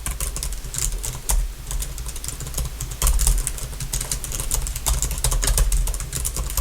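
Fast typing on a computer keyboard: rapid, light key taps in a continuous run.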